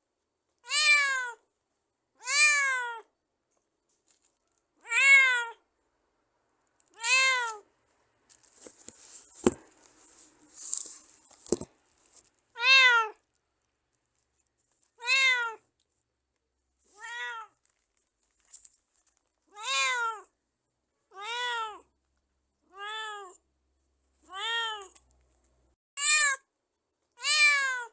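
Domestic cat meowing over and over, about thirteen separate meows, each rising then falling in pitch, one every one and a half to two and a half seconds. In the middle there is a rougher, scratchy stretch with two sharp clicks.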